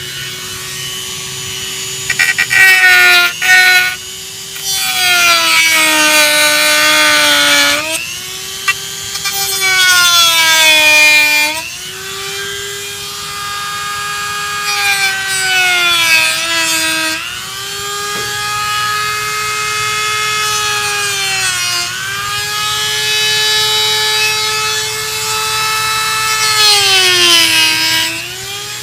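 Dremel rotary tool with a cutting bit running at high speed and cutting into a casement window frame to widen the hole for the crank hardware. Its high whine drops in pitch each time the bit bites into the material and climbs back as it eases off, with loud gritty cutting noise in several stretches.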